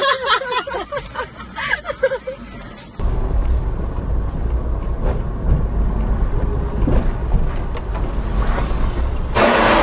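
Voices inside a car for about two seconds. Then, after an abrupt change, the steady low rumble of a car driving, picked up by its dashcam, with a louder rushing noise near the end.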